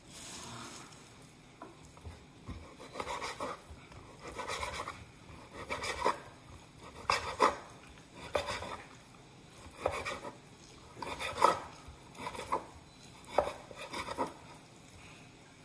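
Kitchen knife slicing raw steak on a wooden cutting board: about ten separate cuts, roughly one a second.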